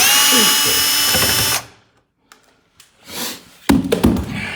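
Cordless power screwdriver running at a steady pitch for about a second and a half, driving out a screw from a door lock. Several sharp knocks of handling follow near the end.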